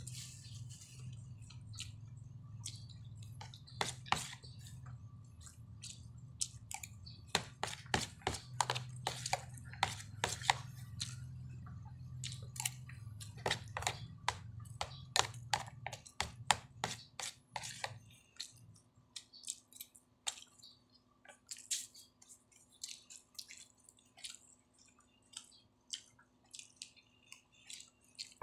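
Eating sounds: a metal spoon clicking and scraping against a plastic food container, with chewing, as many short irregular clicks. A low steady hum underneath fades out about two-thirds of the way in.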